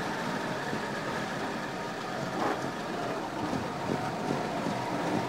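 Vintage bus driving along, its engine running steadily under road noise, with a short knock about halfway through.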